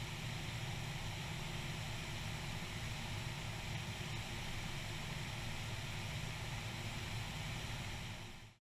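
Steady drone of a single-engine light aircraft's engine and propeller in flight, with wind rushing over the outside-mounted microphone, fading out near the end.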